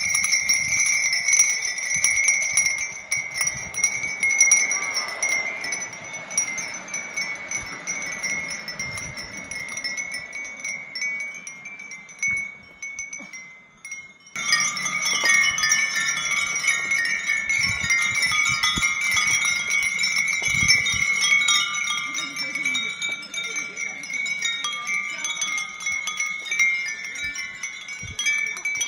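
Many Japanese furin wind bells tinkling together continuously in the breeze, a dense shimmer of high ringing tones. About fourteen seconds in, the sound briefly dips away, then resumes.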